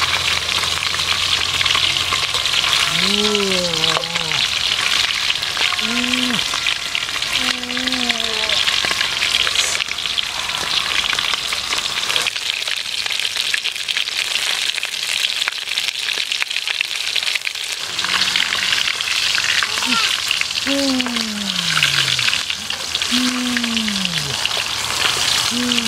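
Two whole fish frying in hot oil in a steel wok, a steady sizzle. A few short pitched calls, each bending up and then falling, can be heard over it near the start and again in the last third.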